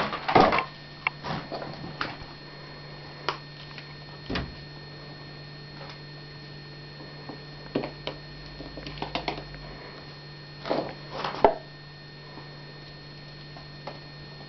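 Irregular taps and knocks of a kitten batting a ball around inside a kitten play castle, loudest in a cluster at the start and again near the end, over a steady low hum.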